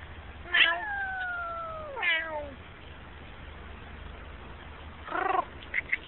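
A domestic cat meowing three times: a long drawn-out meow sliding down in pitch, a second falling meow, and a short one near the end.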